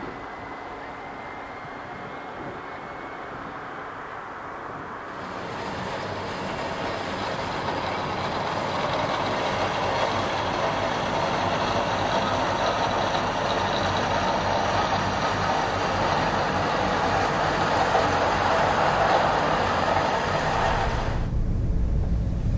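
Street-cleaning truck working: a steady rushing noise that swells about five seconds in, holds loud, then cuts off suddenly near the end.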